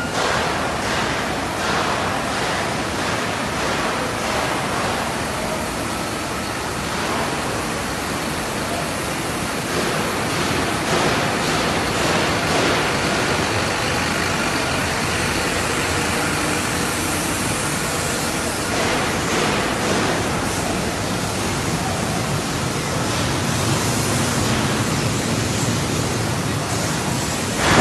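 Steady, even hiss of factory-hall background noise in a large bus assembly plant, with no single machine standing out.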